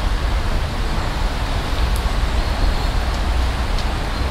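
Wind buffeting the microphone: a steady rushing hiss with an unsteady low rumble.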